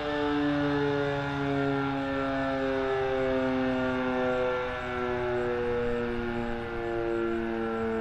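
Sentry 10V outdoor warning siren sounding a steady alert: a continuous chord of several tones that drift slowly in pitch. The sound swells and fades a little every few seconds.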